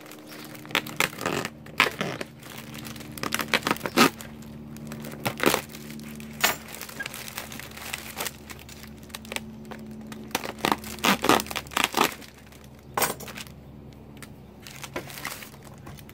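Bubble wrap and plastic packaging crinkling and crackling as it is pulled off a heavy object, in irregular crackles and rustles over a low steady hum.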